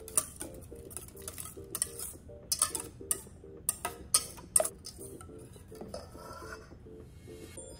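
Wire whisk beating an egg mixture in a stainless steel bowl: quick, irregular clinks and scrapes of metal on metal, thinning out after about five seconds.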